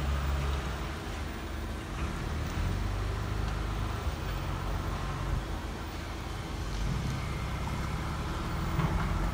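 Steady low rumble of a vehicle driving, heard from inside the cabin.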